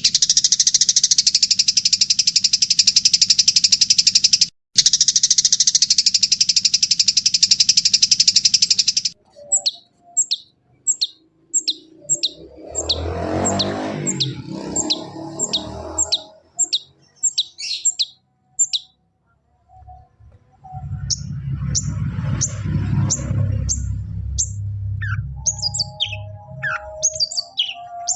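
Long-tailed shrike (cendet) song: a harsh continuous buzzing rattle for about nine seconds, then a run of short, sharp descending chirps about two a second. A low rumbling noise comes in for a few seconds in the second half, and near the end mixed chirps with a few held mid-pitched notes.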